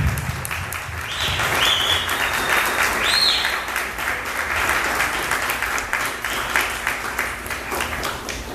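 Audience applauding, with a few high whistles about one to three seconds in.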